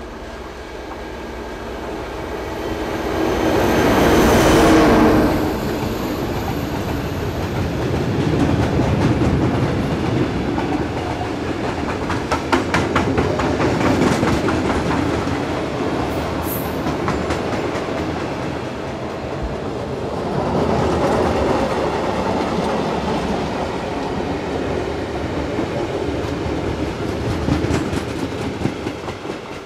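A heavy diesel freight locomotive of the Ludmilla type passes close by, loudest about four to five seconds in, and a long train of open freight wagons then rolls past with steady wheel rumble and clickety-clack over the rail joints. A brief high wheel squeal comes about halfway through.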